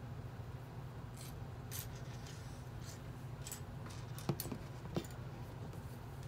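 Small plastic Lego pieces clicking and scraping as fingers pick through a loose pile on a wooden tabletop: a scatter of light clicks, the two sharpest a little past the middle.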